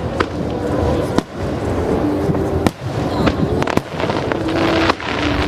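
Aerial fireworks shells bursting in quick succession: five sharp bangs about a second apart over a steady din of further bursts.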